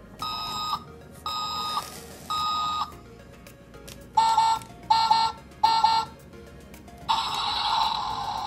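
Road Rockers toy recycling truck's built-in electronic sound effects, set off from a button on the cab: three long beeps, then three shorter, louder, lower beeps, then a steady electronic sound starting about seven seconds in.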